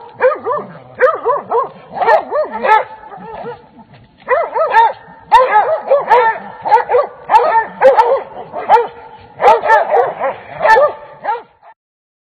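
Hunting hounds barking and yelping over a cornered coyote in quick runs of calls, with a short lull about four seconds in. The sound cuts off suddenly near the end.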